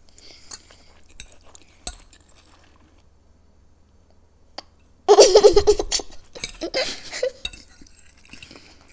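A young girl giggling in a loud burst about five seconds in, with a second, shorter laugh after it. A few light clinks of forks on plates come before it.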